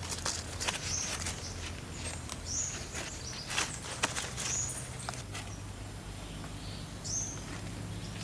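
Outdoor forest sound: a bird gives a few short, high chirps about two seconds apart among scattered sharp clicks and crackles, over a faint steady low hum.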